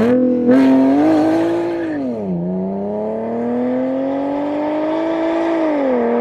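Audi S5's 3.0-litre supercharged V6 with X-pipe and muffler-delete exhaust, revving hard. The revs climb sharply at first, dip about two seconds in, climb slowly for about three seconds, then fall again near the end.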